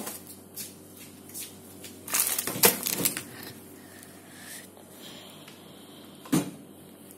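Rustling and scraping bursts of a handheld phone being moved about, loudest around two to three seconds in, then a single sharp knock about six seconds in, over a faint steady hum.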